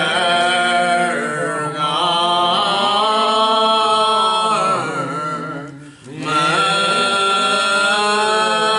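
A hymn sung unaccompanied in slow, long drawn-out notes that bend between pitches. The singing breaks off briefly about five and a half seconds in, then starts again.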